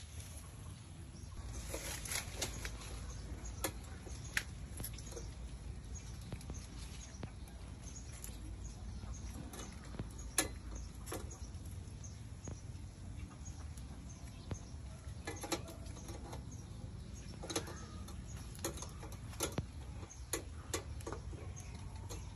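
Metal tongs clicking and scraping against a wire grill rack as grilled fish are picked up, a scattered series of sharp clicks over a steady low background noise.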